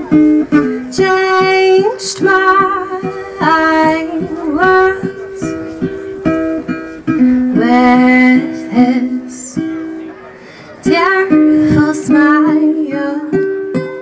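Live acoustic music: a woman singing long notes with vibrato over a plucked ukulele, with a short break in the singing a little past the middle.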